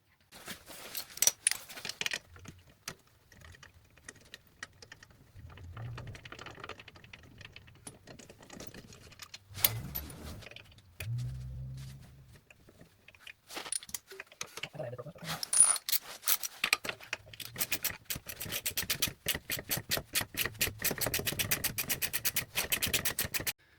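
Metal tools clinking against a car's brake hardware, then a hand ratchet clicking quickly and evenly, about six or seven clicks a second, for the last several seconds. This is the work of undoing the rear brake caliper's 17 mm bolts.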